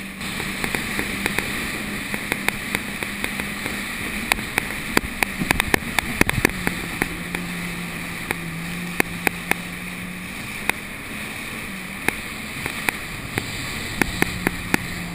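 Jet ski engine running at speed with a steady droning note that dips a little in the middle and rises again near the end, over a rush of spray. Many sharp slaps as the hull hits the chop break through it, thickest about five to six and a half seconds in.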